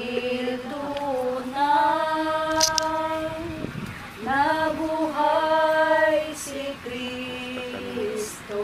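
A slow hymn sung by a woman's voice in long held phrases, with a short break about four seconds in.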